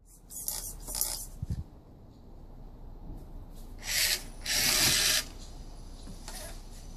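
Radio-controlled toy monster truck driving in short bursts across wooden deck boards, its electric motor and gears whirring with the tyres scrubbing the boards, loudest in two short bursts about four and five seconds in.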